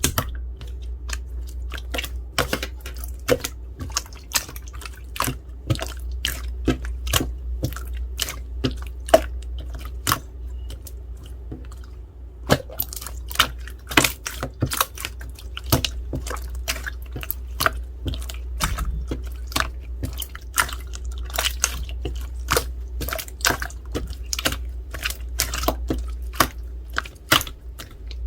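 Jelly slime being squished and pressed by hand: a fast, irregular run of sharp wet clicks and pops, over a steady low hum.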